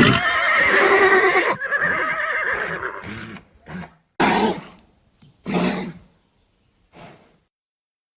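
Horse whinnying: one long, wavering neigh that fades out over about three seconds, followed by three short, noisier sounds spaced a second or more apart.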